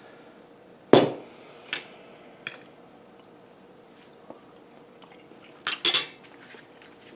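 A metal fork clinking on a plate and a hot sauce bottle set down on a countertop. There is a sharp clink about a second in, then a couple of lighter taps, and a quick run of clinks near the end.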